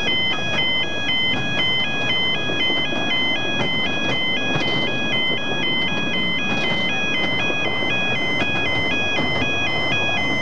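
Level crossing warning alarm sounding continuously: an electronic two-tone signal switching rapidly and evenly between a higher and a lower pitch. Under it runs a steady rumble from the miniature train's carriages passing over the crossing.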